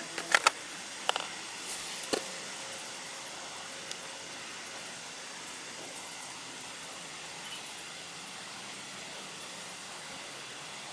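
A few sharp clicks and taps of fishing tackle being handled in the first two seconds, then a steady hiss.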